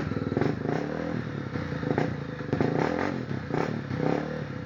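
Off-road motorcycle engine revving up and down several times, with clattering knocks.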